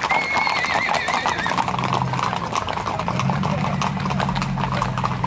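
Horses' hooves clip-clopping on a dirt and gravel road, with a horse whinnying in a wavering, slightly falling call near the start. A low steady hum joins in the second half.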